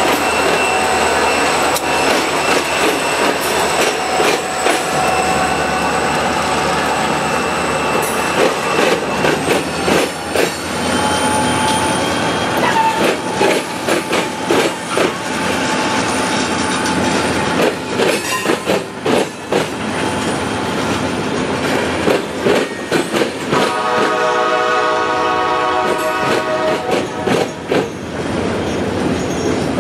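CSX freight train with diesel locomotives and gondola cars passing at slow speed: engines running, wheels squealing in steady high tones, then rapid clacking knocks as the cars roll over the rail joints. About 24 s in, a train horn sounds for about three seconds.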